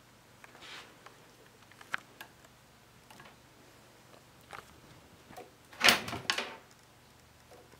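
Cat playing with a small ball toy on a carpet: scattered light taps and clicks as it paws the toy, then a louder scuffle about six seconds in as it dashes off.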